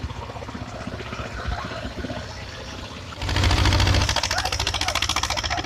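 Vintage tractor engine running with an even firing beat, then revved hard about three seconds in and held louder near the end.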